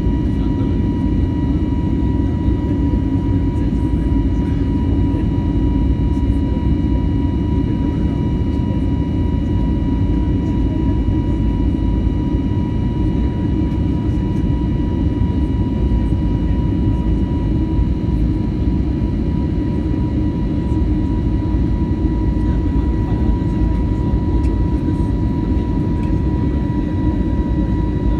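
Airbus A320 jet engines and rushing air heard from inside the cabin in the climb after takeoff: a steady low rumble with a few steady whining tones over it.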